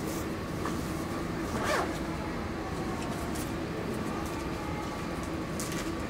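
Train station platform ambience: a steady low hum and hiss, with one brief swishing sound a little under two seconds in.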